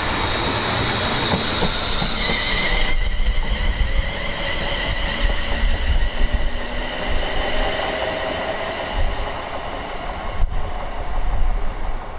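Train passing on the West Coast Main Line: the running noise of the wheels on the rails, with high whining tones over it, some stopping about three seconds in. A low rumble from wind buffeting the microphone lies underneath.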